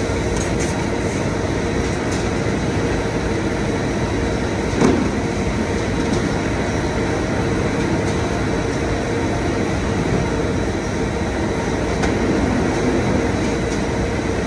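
Steady din of warehouse machinery: conveyors and packing equipment running with a constant hum, a few light clicks, and one sharper knock about five seconds in.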